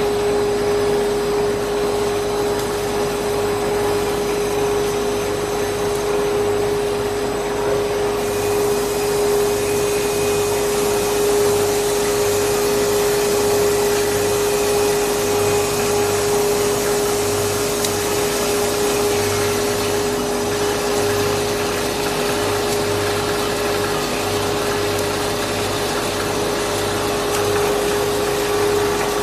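Five-layer stretch film cast line running: a steady mechanical rushing hum with a constant mid-pitched whine.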